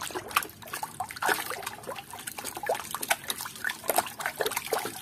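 Water sloshing and splashing in quick, irregular strokes as a hand swishes a muddy plastic toy animal through a basin of water to wash it.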